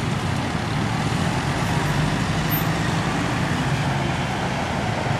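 Steady road traffic, cars and motorbikes passing, with a continuous low engine rumble.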